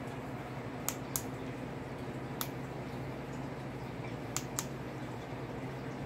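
Sulphur-crested cockatoo chewing at something with its beak: five sharp clicks, two close pairs and one single, over a steady low hum.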